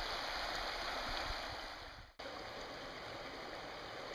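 River water running steadily, a continuous rushing hiss. About two seconds in it fades and cuts off for an instant, then goes on slightly quieter.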